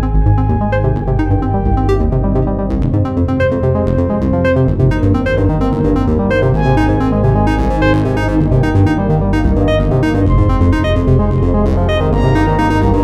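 A Samsung Galaxy A70 stock ringtone: an electronic synthesizer tune over a steady beat and heavy bass.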